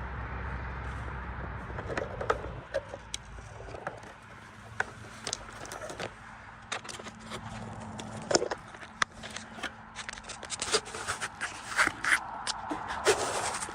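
Irregular sharp clicks and short scrapes, coming faster in the last few seconds, over a low rumble that fades out a few seconds in.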